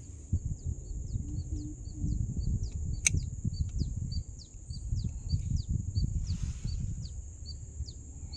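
Low rumble and rustle of a phone's microphone rubbing against clothing. Behind it a bird repeats a short high two-note chirp, a falling note then a short dot, about two pairs a second, over a steady high insect buzz. One sharp click about three seconds in.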